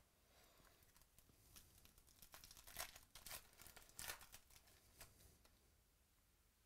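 Faint crinkling and rustling of trading-card packaging and plastic sleeves being handled, a string of short scratchy sounds from about half a second to five and a half seconds in.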